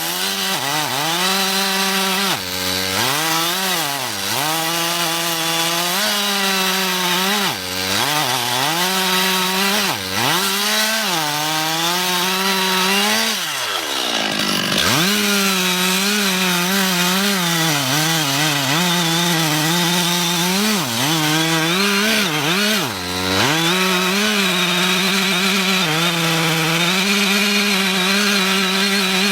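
Chainsaw engine running at high revs, cutting wood. Its revs dip and recover every second or two, and fall low once about halfway through before climbing back.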